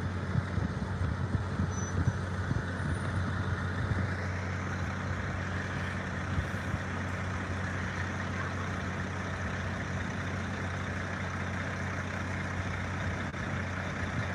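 Motorcoach's diesel engine running as the bus drives slowly past and turns. It is a steady low drone with road and tyre noise.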